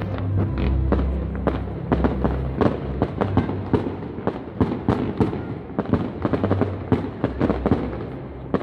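Fireworks display going off: a rapid, irregular series of sharp bangs and crackles, several a second, over a low rumble.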